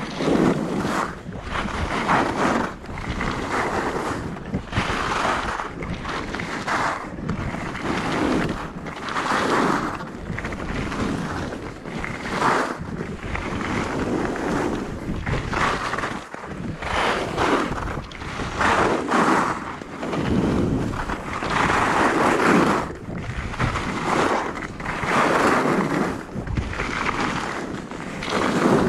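Skis scraping and carving over packed snow through a run of turns, the hiss swelling and fading about every second or two, with wind rushing over the microphone.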